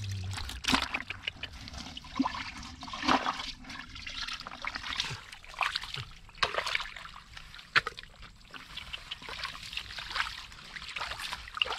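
Wet mud and shallow water squelching and splashing as hands work through it, in irregular short splashes with a few sharper ones.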